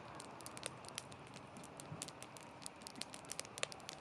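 Wood fire crackling: many small, sharp pops and snaps, several a second, over a soft steady hiss.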